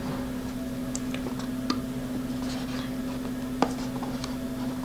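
A few small, sharp clicks and ticks of fingers handling thin wires against a flight controller board, the loudest about three and a half seconds in, over a steady low hum.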